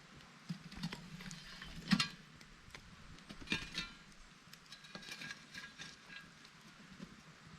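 Scattered knocks and clinks of a campfire being worked around a cast-iron camp oven, with the loudest knock about two seconds in.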